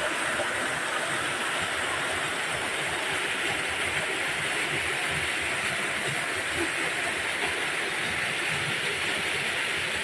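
Steady rushing of water from a mountain stream and waterfall, an even hiss that holds at the same level throughout.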